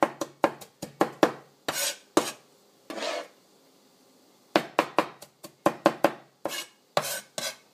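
Chinese cleaver chopping green onions, ginger and garlic together on a plastic cutting board: quick knocks of the blade on the board, about four a second, in two runs with a pause of about a second near the middle.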